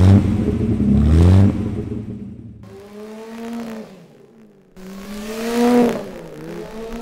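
Austin-Healey 3000 Mark II's three-carburettor straight-six engine revving as the car drives by, in short edited passes: the engine note climbs hard at the start, and the sound cuts off abruptly twice between passes. The last pass swells, then drops in pitch as the car goes past.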